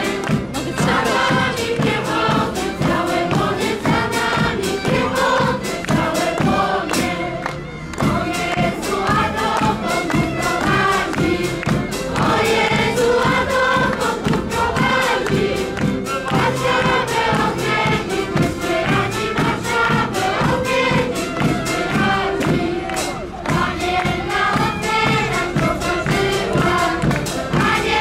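A choir of girls singing a Polish Kraków-region folk song together.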